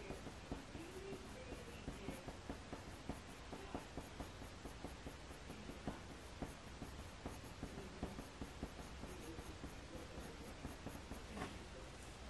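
Faint scratching of a Faber-Castell Polychromos coloured pencil laying short, quick strokes on hot-press watercolour paper, several irregular strokes a second as fur is shaded in.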